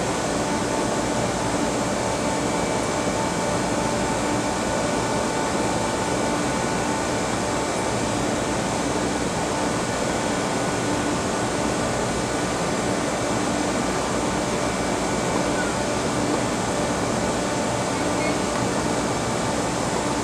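A steady, even mechanical hum with a few faint steady tones running through it, unchanging throughout.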